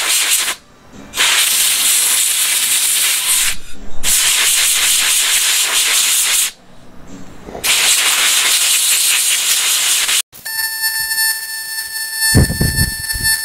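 Compressed-air blow gun hissing through a foam air filter, in four long blasts with short pauses between them. For the last three seconds a steady high-pitched tone with overtones takes over, with a short low rumble near the end.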